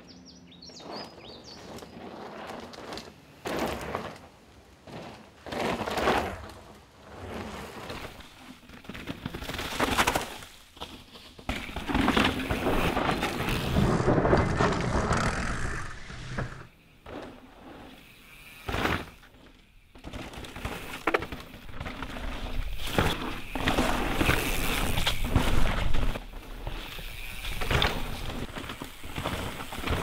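Mountain bikes ridden fast on loose dirt trails: tyres rolling and skidding through soil in repeated rushing surges, the longest one a few seconds long, with sharp knocks and clatter from the bikes over rough ground.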